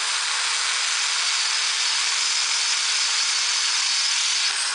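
Electric drill running at steady speed, boring holes through clamped steel plates and the steel profile tube: a steady motor whine over a hiss of cutting. Right at the end the whine starts to drop as the trigger is released and the motor winds down.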